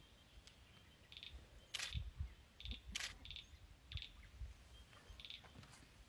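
Faint, short, high bird chirps several times at uneven intervals, with a couple of sharp clicks and low bumps about two to three seconds in.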